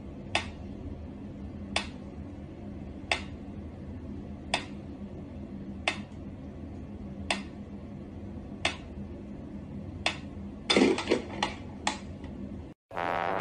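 Mechanical pendulum metronome ticking slowly, one sharp tick about every 1.4 seconds, over a low steady hum. Near the end a quick run of louder clicks and knocks breaks the rhythm.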